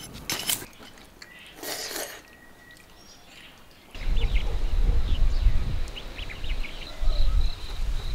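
A metal hand hoe chopping into dry soil: a couple of sharp strikes, then a short scrape of earth. From about four seconds in, a louder, uneven low rumble takes over, with birds chirping.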